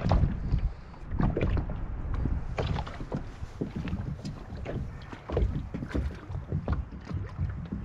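Irregular knocks and clicks on a small plastic boat over a low rumbling noise of water and wind.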